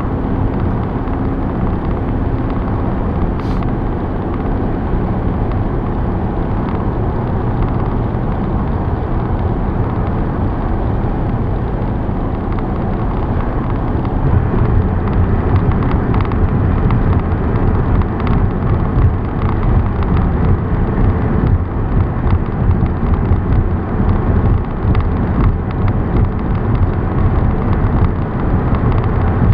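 Car driving at highway speed: steady engine, tyre and wind noise, growing louder about halfway through.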